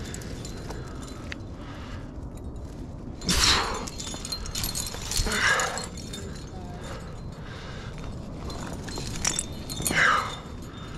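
A trad climber working up a granite crack: three loud, short rushing sounds a couple of seconds apart, each falling in pitch, over a steady hiss, with faint clinks from the gear rack.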